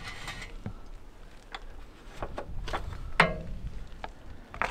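Scattered light metallic clicks and taps from hand work on the exposed rocker arms and valve springs of a V8 diesel engine that is not running. About three seconds in comes one louder clank that rings briefly.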